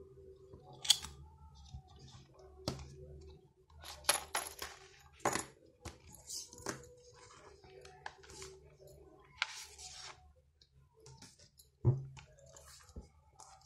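Handling sounds of an aluminium ruler and a faux-leather traveler notebook: scattered metallic clicks and taps as the ruler is moved and set down, a short rustle as the cover and pages are opened, and a soft thump near the end.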